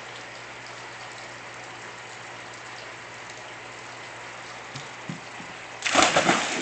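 A child jumps off a diving board and splashes into a swimming pool about six seconds in: a loud splash that breaks into water sloshing and tails off. Before it there is a steady hiss with two soft knocks.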